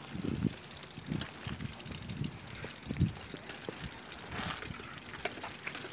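Bicycle chain running over the sprockets of a pedalled bike's drivetrain, with faint clicks and a few dull low thumps. The loudest thump comes about three seconds in.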